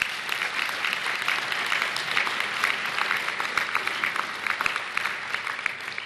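Audience applauding, a dense patter of many hands clapping that begins to die away near the end.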